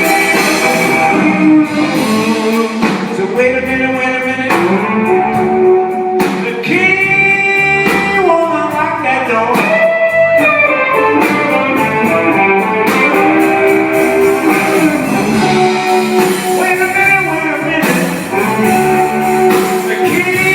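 Live band music led by electric guitar lines, with a voice singing along.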